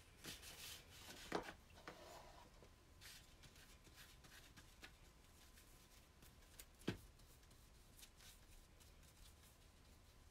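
Faint rustling of paper handled on a workbench, with a few light taps, the clearest one about seven seconds in.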